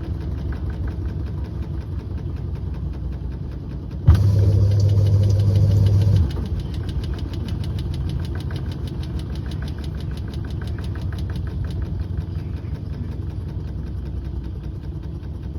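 A Samsung appliance running with a rain-like patter inside the unit: a fast, even ticking over a steady hum. About four seconds in, a louder steady hum switches on, then cuts off two seconds later.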